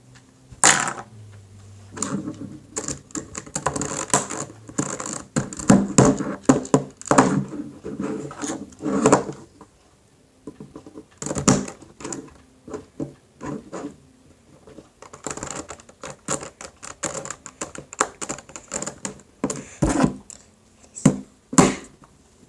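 Irregular clicking and clacking of plastic Rubik's cube pieces being handled and snapped in and out of place, in quick clusters with a short lull about halfway through.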